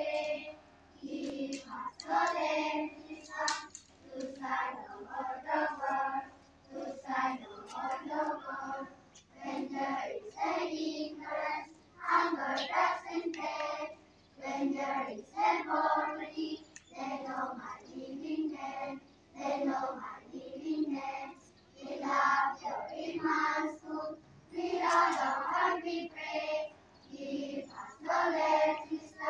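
A large group of schoolchildren singing together in chorus, in phrases of a second or two with short breaks between them.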